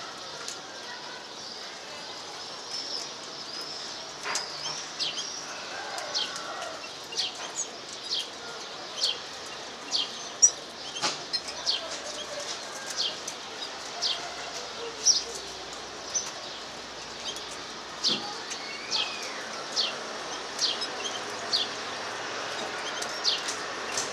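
Red crossbill in a cage giving short, high chirps, roughly one a second, with now and then a sharp click as it works seeds out of a cypress cone.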